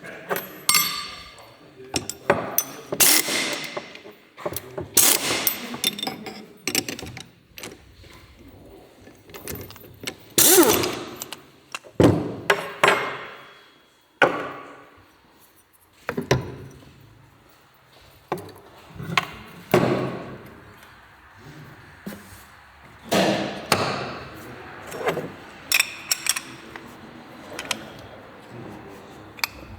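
Hand tools and metal engine parts being worked and set down during a motorcycle engine rebuild: a long run of irregular knocks and clanks, some ringing briefly.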